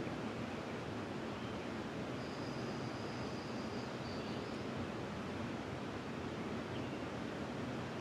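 Steady rush of flowing river water. About two seconds in, a bird gives a faint, thin high note held for a couple of seconds.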